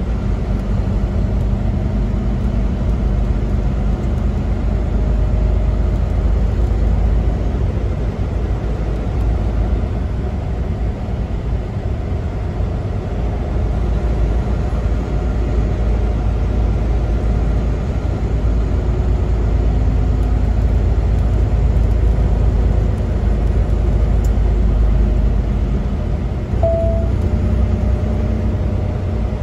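Truck engine and road noise heard inside the cab while driving at steady speed: a continuous low rumble that rises and falls slightly with the road. A brief short tone sounds near the end.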